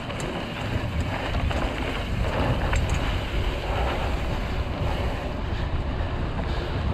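Mountain bike riding down a dirt flow trail at speed: wind rushes over the camera microphone with a steady low rumble, getting louder about a second in, and a few light clicks.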